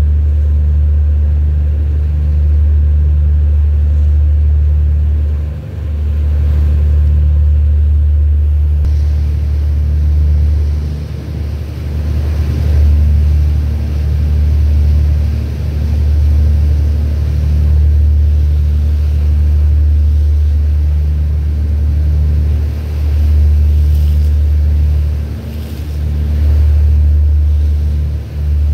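Steady deep rumble of a small boat's engine running, pulsing slightly, with a hiss above it that gets louder about nine seconds in.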